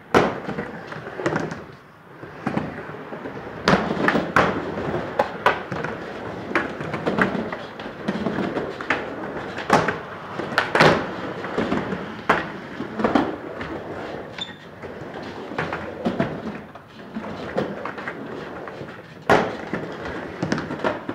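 Skateboard wheels rolling on a wooden ramp, a steady rumble broken by many irregular sharp clacks of skateboards knocking on the wood. The loudest clacks come about eleven seconds in and near the end.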